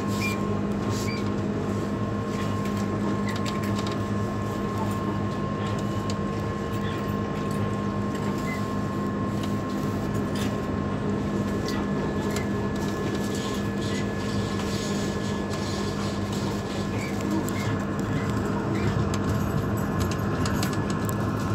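Class 399 tram-train (Stadler Citylink) running, heard from inside the driver's cab: a steady hum with several fixed tones over the rumble of the wheels on the track, with scattered short clicks.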